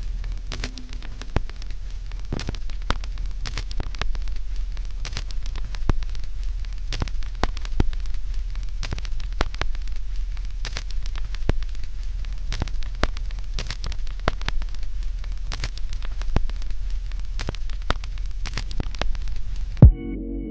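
Steady crackling hiss with many irregular sharp pops over a low hum, cutting off abruptly near the end with one loud pop.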